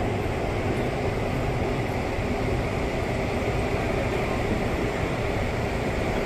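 Steady outdoor background noise: a continuous low rumble with hiss above it, with no distinct events.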